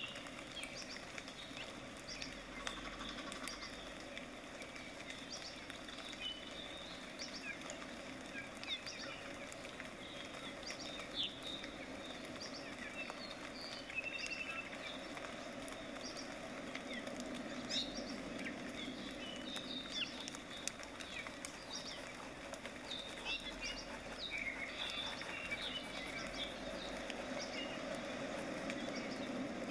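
Paintbrush bristles dabbing and scraping through thick acrylic paint on a palette and across a stretched canvas: soft, irregular scratchy strokes with small ticks.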